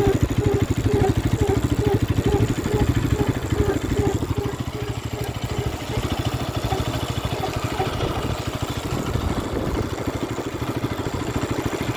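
Bajaj Pulsar RS 200's single-cylinder engine running steadily. Over it, a short pitched chirp repeats about two to three times a second, fading out about halfway through, which the owner takes for a brake noise.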